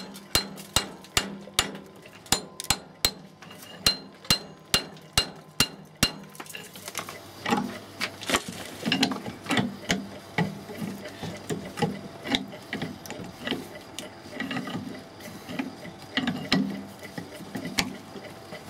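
A hammer tapping steadily on the steel cap of a glass strain insulator clamped in a vise, about two and a half ringing metal strikes a second, to knock the cemented cap loose from the glass. About six seconds in the tapping stops and gives way to irregular knocking and scraping of metal as the cap is twisted with a bar through its eye, without coming apart.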